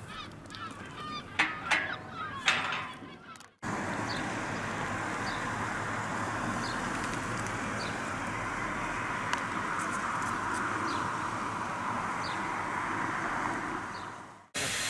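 Outdoor ambience: a steady even rushing noise with short, faint, high bird chirps about once a second. Before it, a few loud sharp honk-like calls about two seconds in, which cut off suddenly.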